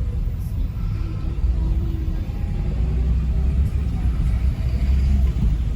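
Low, steady rumble of a car on the move, heard from inside the cabin.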